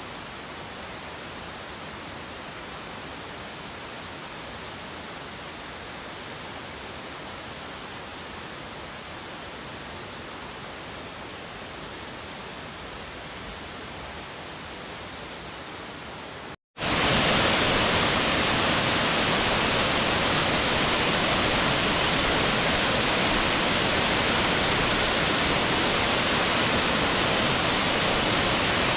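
Steady rushing roar of the Kita-Shōjigataki waterfall. About seventeen seconds in, the sound cuts out for an instant and comes back much louder and brighter.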